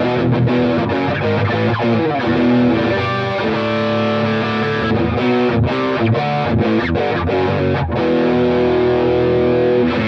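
Electric guitar played through the distortion section of a Mooer Red Truck multi-effects pedal: distorted chords and held notes, with gain and level set at about three o'clock, treble and mid at two o'clock, bass at noon, and the mid boost off.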